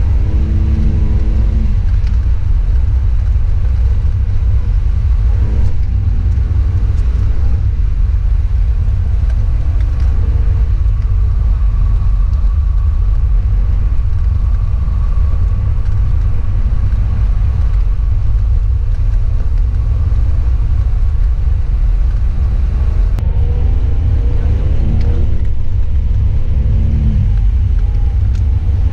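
Car engine and road rumble heard from inside the cabin while driving on snow, the engine note rising and falling with the throttle near the start and again near the end.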